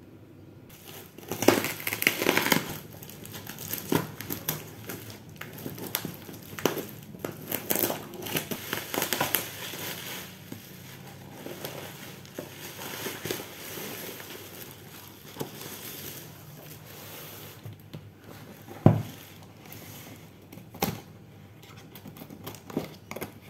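Bubble wrap and cardboard packaging being handled and unwrapped: irregular crinkling and rustling with crackles, starting about a second in. One sharp knock comes well past the middle, and a few clicks near the end.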